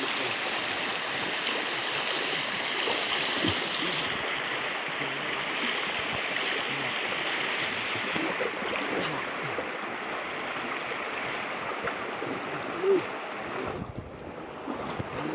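Water of a shallow, muddy stream rushing steadily around people wading and pulling a net through it, quieter near the end. A brief voice sound comes shortly before the water quietens.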